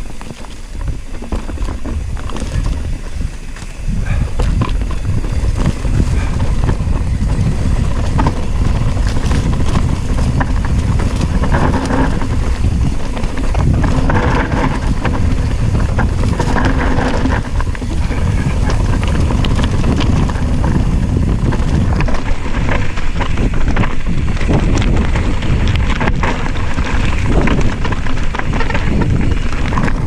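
Wind buffeting the microphone and a mountain bike's tyres and frame rumbling and rattling over a rocky dirt trail on a fast downhill descent, rising to a steadier, louder rush about four seconds in.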